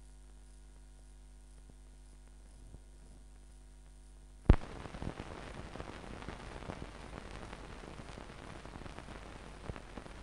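Steady electrical hum on an old newsreel film soundtrack, then a single loud pop about four and a half seconds in, after which the track turns to crackly hiss with scattered clicks.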